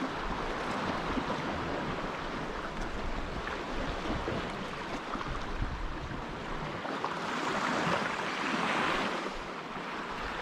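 Sea surf washing against a rocky shore, a steady wash that swells louder about seven seconds in as a wave comes in. Wind buffets the microphone in a low rumble.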